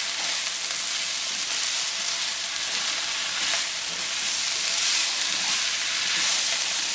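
Sliced green beans, tomato and onion sizzling in a nonstick wok while a silicone spatula stirs them: a steady frying hiss that grows a little louder in the second half.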